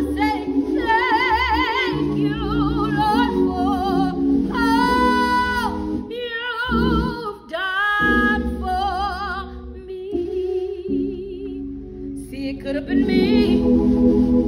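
A woman singing a gospel solo in drawn-out runs and long held notes with a wide vibrato, over steady held accompaniment chords. The voice eases off about halfway through and swells again near the end.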